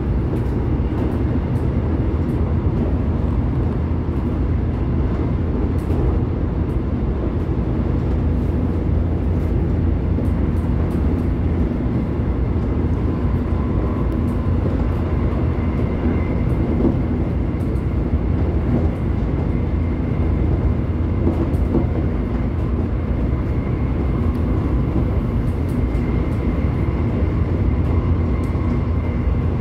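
Gyeonggang Line electric commuter train running steadily along the track, a continuous rumble of wheels on rail. A faint steady whine comes in about halfway through.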